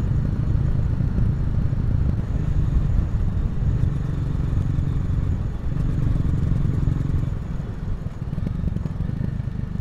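Honda CRF250L's single-cylinder four-stroke engine and exhaust running steadily while riding, with the rider easing off a little near the end.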